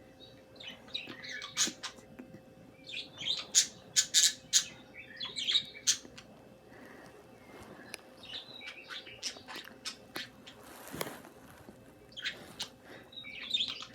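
Pet birds chattering: short high chirps and quick warbling runs, with sharp clicks in between, busiest a few seconds in and again near the end.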